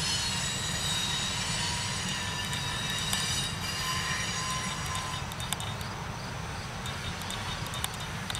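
Loaded coal hopper cars rolling slowly past: a steady low rumble of steel wheels on the rails, with a thin, high wheel squeal over it and scattered clicks from the wheels and couplers, more of them in the second half.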